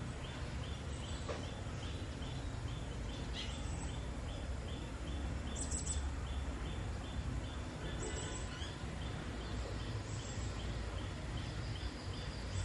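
Outdoor ambience: a low rumble like wind on the microphone under a high chirp repeating about three times a second, with a few faint clicks.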